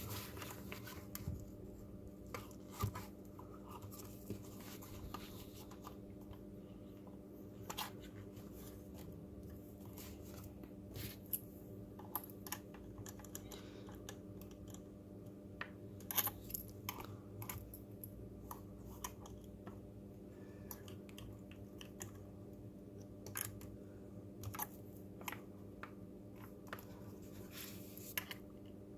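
Scattered light clicks and taps of plastic robot body parts being handled and pressed together, over a faint steady hum.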